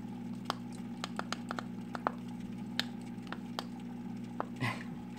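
Light, sharp clicks at an irregular pace, a few a second, over a steady low hum.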